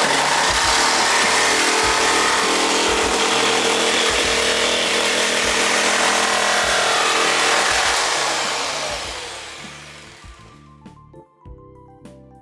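Jigsaw cutting an outlet opening through a thin stainless steel backsplash panel: a loud, steady, high-pitched metal-cutting noise that starts suddenly and dies away about eight to ten seconds in, over background music.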